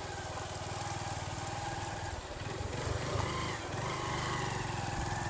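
Motorcycle engine running steadily while riding, a fast even exhaust beat that gets a little louder about halfway through.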